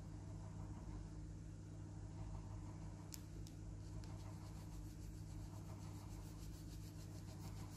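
Colored pencil shading on paper in quick, even back-and-forth scratching strokes, starting about three seconds in, over a steady low electrical hum.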